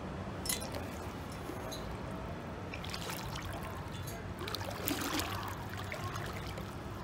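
Bare feet stepping down into a swimming pool's shallow steps, the water splashing and sloshing around the legs, most clearly about three and five seconds in, over a steady low background noise.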